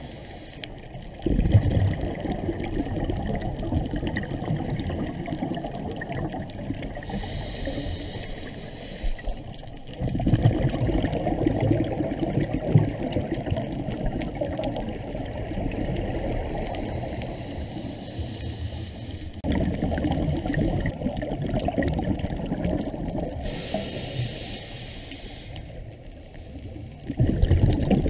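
Scuba diver breathing through a regulator, heard through an underwater camera housing. Four long bursts of exhaled bubbles rumble about every nine seconds, with a quieter hiss of inhalation between them.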